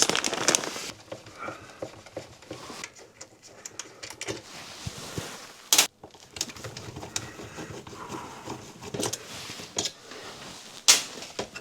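Handling noises from hand tools and an electrical fitting being worked on: scattered light clicks and rustles, with two sharp clicks, one about six seconds in and one near the end.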